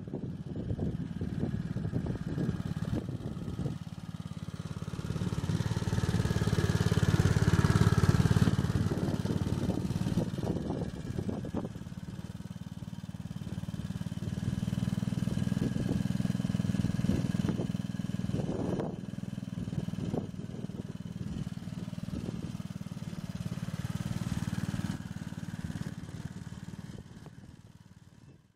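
7¼-inch gauge miniature locomotive running along a garden railway with a wagon loaded with sleepers, its small engine running steadily, with clicks and rattles from the wheels and the load. It is loudest about eight seconds in and dies away at the very end.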